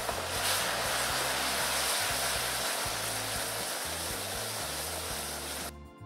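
Hot caramel boiling and sizzling with a steady hiss as water is stirred into it with a wooden spoon; the hiss cuts off suddenly near the end.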